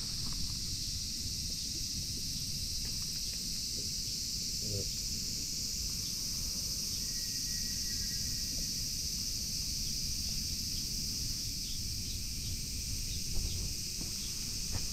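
Steady chorus of cicadas, an even high-pitched drone that does not let up, over a low rumble, with a few faint ticks.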